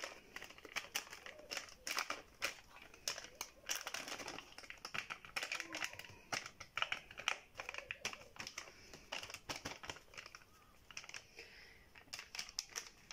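A foil-lined sachet of whipped-cream powder crinkling and crackling in quick irregular bursts as it is shaken and squeezed empty over a plate. The crackles thin out near the end.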